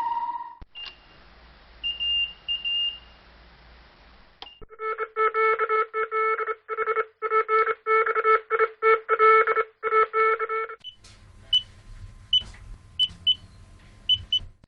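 A series of electronic beep sound effects. First a faint hiss with a few short high beeps. From about five seconds in comes a run of buzzy on-and-off beeps of uneven length, then a low hum with scattered short high blips.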